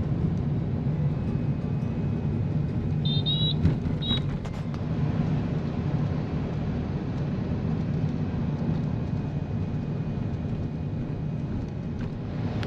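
Steady road noise and engine hum of a taxi driving through city traffic, heard from inside the cabin. Two short high beeps sound about three and four seconds in, with a brief thump between them.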